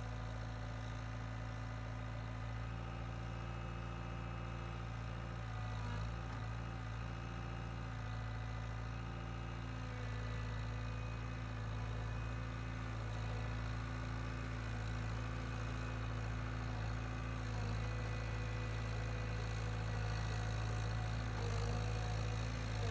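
Skid steer loader's diesel engine running steadily while it works a grader attachment over a dirt road, its pitch dipping briefly about six seconds in and the sound growing slightly louder near the end.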